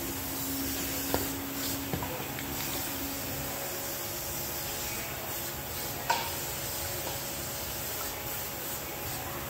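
40-horsepower DC motor running on test with a steady hum and hiss, with a few short hisses from an aerosol spray can.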